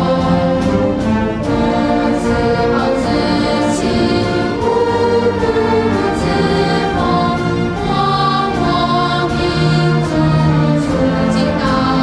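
A choir singing a slow song in long held notes over instrumental accompaniment.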